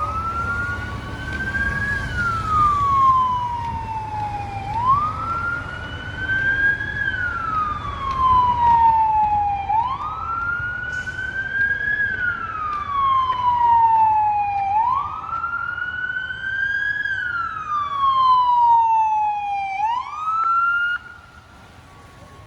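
Fire truck siren wailing in slow cycles: each one rises quickly, then falls in a long sweep, repeating about every five seconds over low traffic rumble. A second, higher siren sweeps alongside, and the sound drops away sharply near the end.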